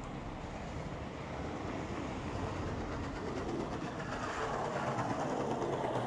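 Street traffic noise: a steady rumble that grows louder past the middle.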